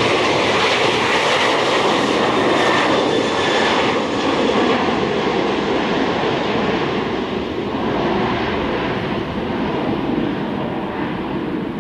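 Boeing 737 jet airliner at take-off thrust: a loud, steady jet roar with a whine in it through the take-off roll and lift-off. The high end fades over the last few seconds as the aircraft climbs away.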